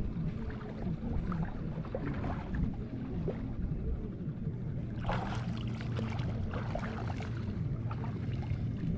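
Steady low hum of a boat engine running over water, with water lapping and splashing close by; a louder spell of splashing comes about five seconds in.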